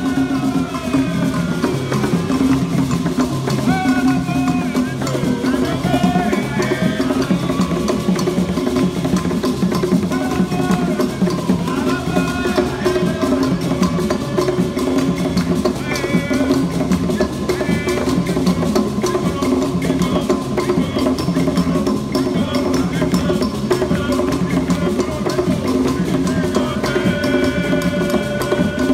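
Kpanlogo drum ensemble playing: several hand-struck kpanlogo drums in a driving interlocking rhythm, over the steady click of bell and castanet, with voices singing over the drums.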